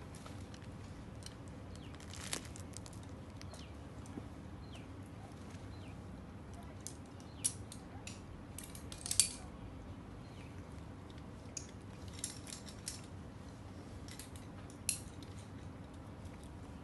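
Climbing gear clinking: quickdraws and carabiners jangling on a climber's harness as he moves, a scattering of short metallic clicks. The loudest come about seven and a half and nine seconds in, over a steady low background hum.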